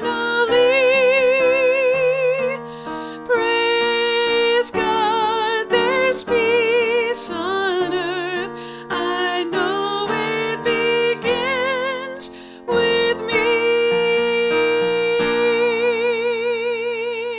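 A woman singing a slow devotional song with vibrato over instrumental accompaniment, ending on a long held note.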